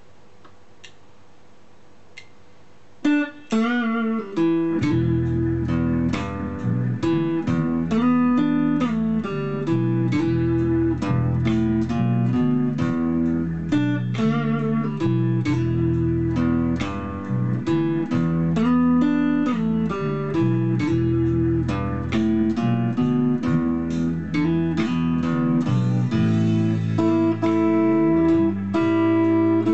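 Fender electric guitar playing a blues piece with a steady bass line under chords and melody notes, starting about three seconds in after a faint hum.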